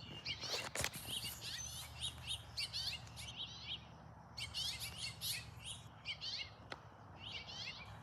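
Small songbirds chirping in rapid series of short high notes, pausing briefly about halfway through, with a few faint clicks of handling.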